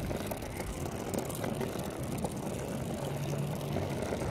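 Small plastic wheels of a toddler's three-wheeled ride-on scooter rolling over rough asphalt, a steady gritty rumble with fine crackling. A faint low hum joins about three seconds in.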